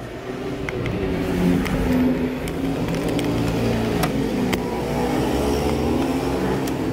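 A motor vehicle engine running steadily, its pitch wandering slightly, with a few light clicks as a screw is driven by hand through a small steel bracket into the plastic seat base.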